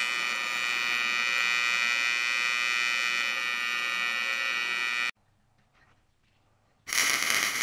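AC TIG welding arc buzzing steadily while filler rod is fed into the joint, cutting off suddenly about five seconds in. After a short quiet gap, a loud hiss starts near the end.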